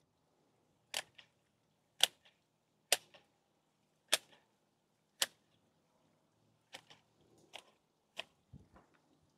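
Hand hedge shears snipping through the twigs of a ligustrum shrub being clipped into a ball: a sharp snip about once a second, five loud ones, then several softer, quicker cuts in the second half.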